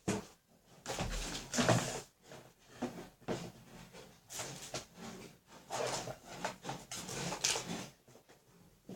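Irregular rubbing, scraping and light knocking of household objects being handled, in short uneven bursts.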